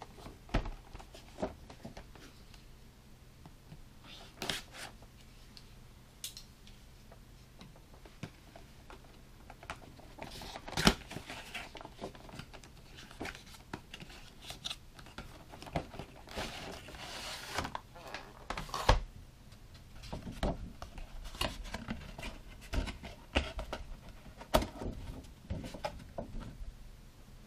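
Cardboard action-figure box being opened by hand: a knife cutting the tape, cardboard flaps rustling, and the clear plastic tray being worked out of the box. Scattered clicks and rustles, a longer scraping rustle a little past halfway, and a couple of sharp knocks.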